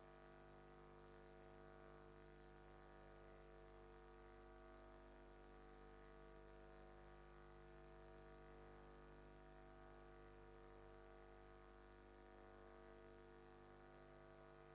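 Near silence: only a faint steady electrical hum, with a thin high whine that swells and fades slightly about once a second.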